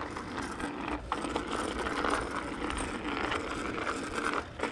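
Bicycle being ridden uphill on a road: steady rushing tyre and wind noise, with a short sharp knock about a second in.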